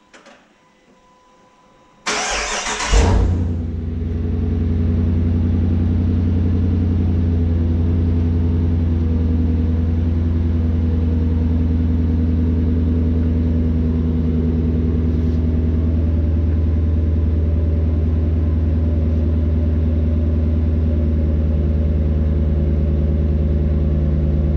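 Dodge Charger engine starting: a brief crank about two seconds in, a short start-up flare, then a steady idle.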